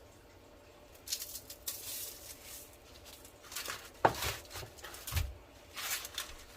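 Crisp rustling and scraping as chicken cutlets are pressed and turned in bread crumbs in a bowl, in three spells, with a sharp knock about four seconds in and a duller thud a second later.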